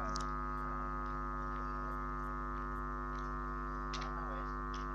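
A steady electrical hum made of several stacked tones, with a few faint short high chirps over it.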